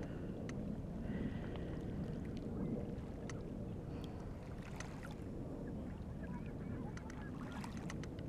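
Small lake waves lapping and splashing right at the water-level microphone: a steady low rumble of water with scattered little splashes and clicks. Faint waterfowl calls sound in the background, mostly in the first second or two.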